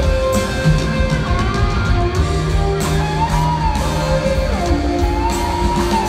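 Live rock band playing in an arena, heard from the crowd with the hall's echo: guitar and held notes over a dense low end, with a melody line that slides up and down in pitch.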